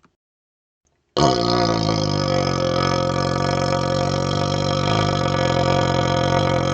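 A man's belly burp blown through a hollow vacuum extension tube, starting about a second in and held as one long burp for over five seconds at a steady pitch.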